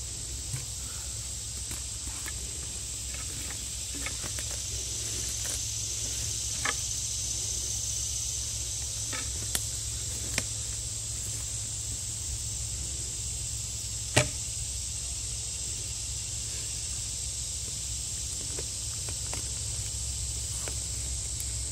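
A steady high insect drone, with scattered knocks and clunks of a steel log-lifting lever and wood being handled; the sharpest knock comes about 14 seconds in.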